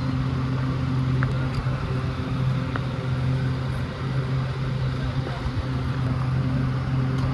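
Motorcycle engine running steadily after a rebuild of its seized piston and crankshaft, an even, unchanging hum.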